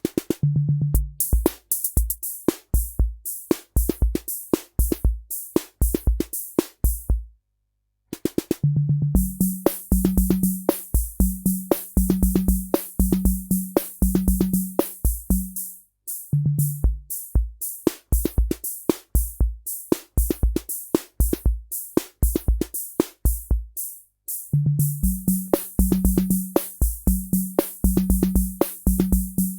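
Korg SR-120 Mini Pops analog drum machine playing a rock rhythm: bass drum, sharp clicky hits and pitched drum tones, with a hissing cymbal layer coming in partway. The pattern stops briefly twice, near 8 and 24 seconds, and restarts with a fill.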